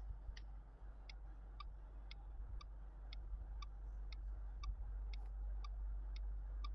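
Clock ticking sound effect, an even tick-tock at about two ticks a second, every other tick a little lower, over a faint steady low hum.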